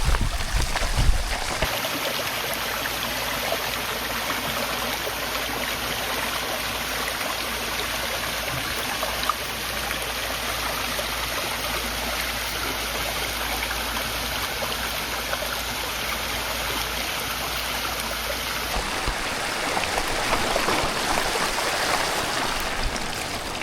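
A waterfall's water rushing steadily, an even wash of falling water. Wind buffets the microphone in the first second or two.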